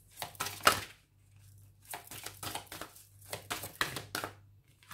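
A deck of oracle cards being shuffled by hand: three runs of quick, papery swishes and flicks with short pauses between.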